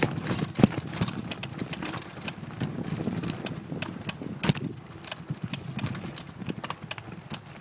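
Rapid, irregular clicks and knocks over a low rumble.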